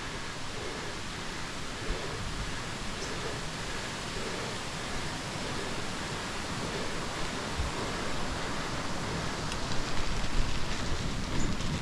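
Steady rushing noise with no distinct events, growing louder about ten seconds in.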